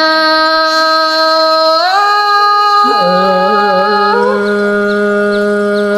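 A voice singing one long drawn-out 'ơ' in Thái folk courting-song style (hát giao duyên). The note is held steady, slides up about two seconds in, then falls to a lower note that is held.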